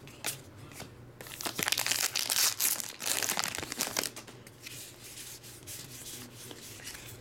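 Crimped wrappers of trading card packs being torn open and crinkled, a dense crackle for about three seconds, followed by softer clicks and rustles as the cards are handled.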